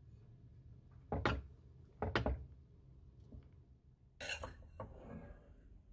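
Metal fork knocking and scraping against glass mixing bowls while chicken pieces are tossed in cornstarch and moved from bowl to bowl. Three louder knocks come about one, two and four seconds in, the last followed by about a second of lighter rattling.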